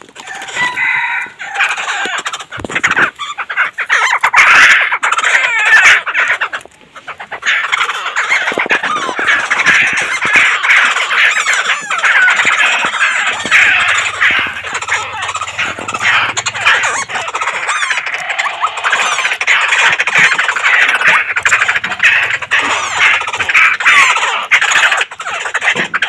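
Caged laughingthrush singing loudly and almost without pause: a dense run of varied whistled and chattering phrases, broken by a short gap about seven seconds in.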